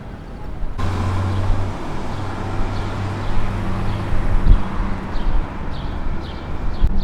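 City street traffic: a dense rush of vehicle noise comes in abruptly about a second in, over the steady low hum of an engine. Short high chirps of small birds sound through it in the second half.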